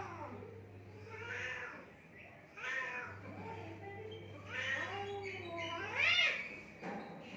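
Domestic cats yowling at each other in a fight: a string of drawn-out yowls, each rising and falling in pitch, with the loudest one rising high near the end.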